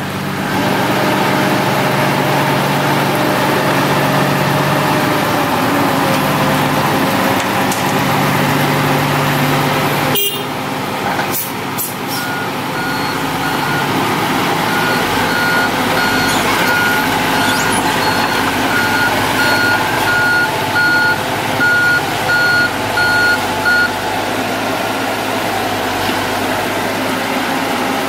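Heavy diesel machinery engine running steadily, with a sharp knock about ten seconds in. Then a reversing or travel alarm beeps in a steady pulse for about ten seconds.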